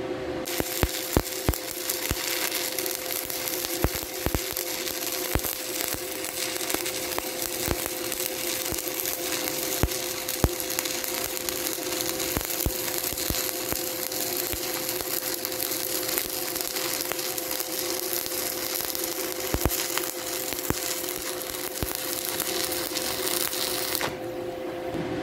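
Shielded metal arc (stick) welding arc running a vertical-up fill pass on steel plate at about 110 amps, reverse polarity: a steady crackling hiss with frequent sharp pops, over a steady hum. The arc stops shortly before the end.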